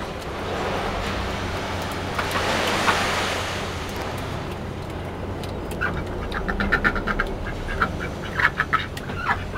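Aigamo ducks quacking in quick runs of short calls through the second half. Before that, a rushing noise swells and fades.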